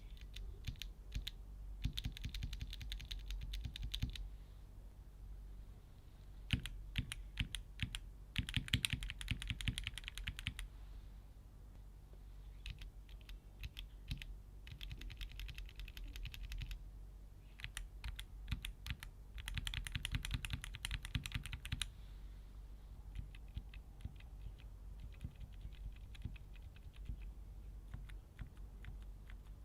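Mechanical keyboard with Keychron K Pro switches being typed on: runs of fast key clicks lasting a couple of seconds each, broken by short pauses, with lighter typing in the last few seconds.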